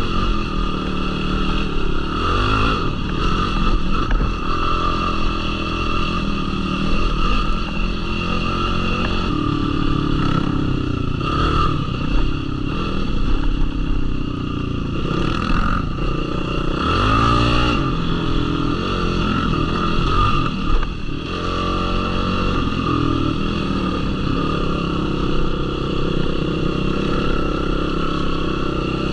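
Yamaha YFZ450R quad's single-cylinder four-stroke engine running on a dirt trail, its revs rising and falling with the throttle, including a quick rev up and back down a little past halfway.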